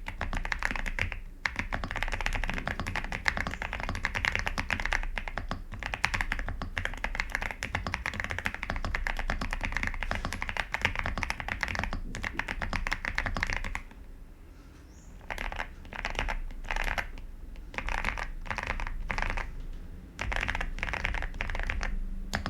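Typing on a Xinmeng M87 gasket-mounted TKL mechanical keyboard fitted with Gazzew Boba U4T tactile switches (62 g). The key presses come fast and continuous for most of the stretch, then after a short pause they come in several brief bursts with gaps between them.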